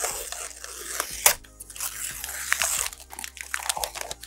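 Paper masking being peeled off a sheet of black cast acrylic: a crackling, tearing rustle with scattered clicks and one sharp snap about a second and a quarter in.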